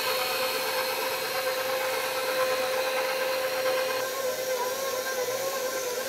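KitchenAid stand mixer running with its spiral dough hook, kneading bread dough: a steady motor whine with one held note, shifting slightly about four seconds in.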